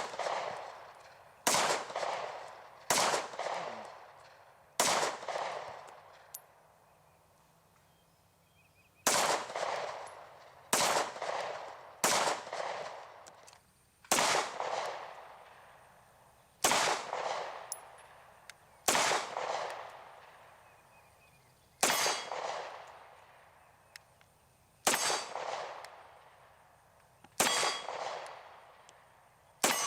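Kahr CW-series double-action-only pistol fired in slow single shots, about thirteen in all, one every two seconds or so, with a longer pause about five seconds in. Each shot rings out and dies away over about a second.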